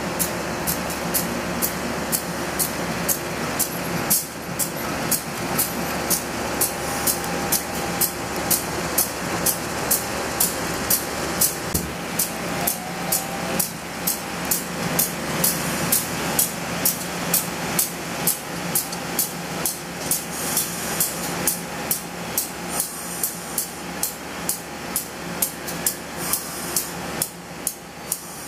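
KAI CC201 diesel-electric locomotive's engine running with a steady low hum as the locomotive moves slowly during shunting. A sharp, regular ticking, about two to three ticks a second, sounds over it throughout.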